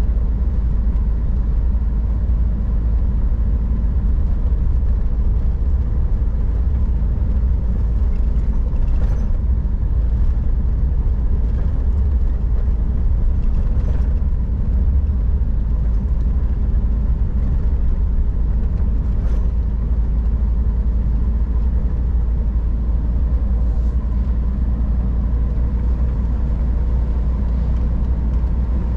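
Scania R440 truck driving at a steady pace: a constant low engine drone and road rumble, with a few faint ticks now and then.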